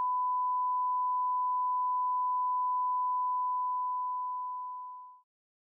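Steady 1 kHz reference tone, the pure test tone that goes with colour bars at the head of a tape, fading out and stopping about five seconds in.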